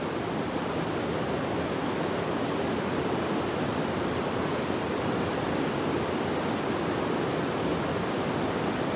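Steady rush of creek water flowing among boulders.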